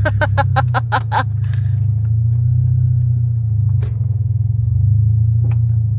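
Steady low rumble of a car driving, heard from inside the cabin. A voice is heard briefly at the start, and there are two short clicks later.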